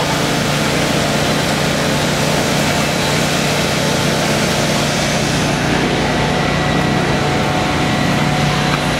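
Steady, loud machine noise from the engine-driven ice blower, with crushed ice rushing out through its large hose to make artificial snow.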